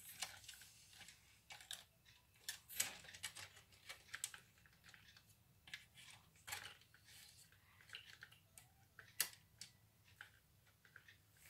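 Small plastic toy vehicles and parts being handled, giving faint, irregular light clicks and taps.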